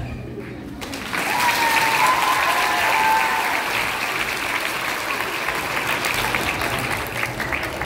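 Audience of schoolchildren applauding, breaking out about a second in and carrying on steadily, with a wavering high held note over the clapping for a couple of seconds early in the applause.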